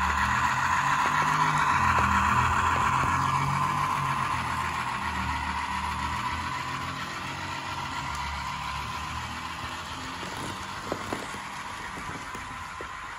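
HO-scale model train running along the track: the diesel locomotive's sound-equipped DCC decoder plays its engine sound over the rolling of the wheels on the rails, growing fainter as the train moves away. Two light clicks near the end.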